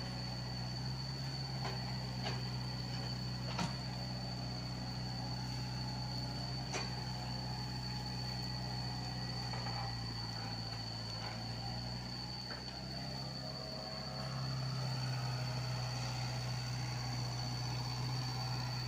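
Komatsu PC75UU mini excavator's diesel engine running steadily under hydraulic work, with a constant high whine and a few sharp knocks in the first several seconds. The engine gets louder about three-quarters of the way through as it works harder.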